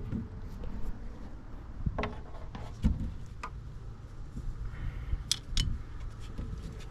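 A few scattered light clicks and knocks, as of things being handled, over a low rumble.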